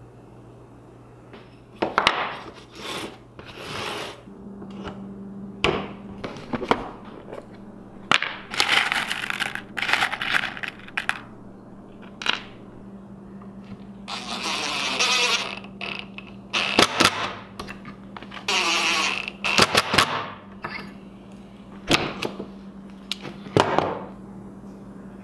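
Workbench assembly of a pine face-frame joint: wooden rails and a face clamp knocking on the bench, pocket screws handled, and several short runs of a cordless drill driving pocket-hole screws.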